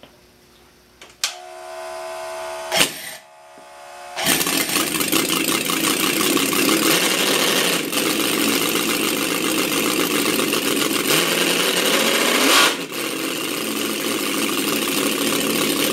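Quarter-scale model V8 engine (6.28 cu in) with a scale GM 6-71 supercharger, cranked over for about three seconds, then firing about four seconds in and running at a rough idle around 1,500 rpm. Near the end the sound swells briefly and then dips.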